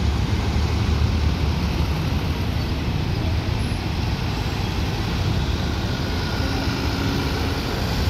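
Steady road traffic: engines of trucks, cars and motorcycles passing on a busy road, a continuous low rumble.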